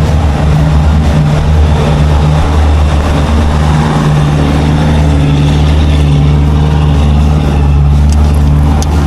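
Motorboat engine running steadily, a loud, even low drone.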